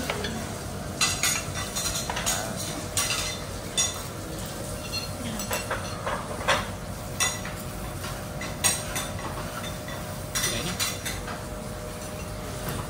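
Metal utensils clinking and scraping against plates and cookware at a teppanyaki meal, about a dozen sharp clinks at irregular intervals over a steady background hum.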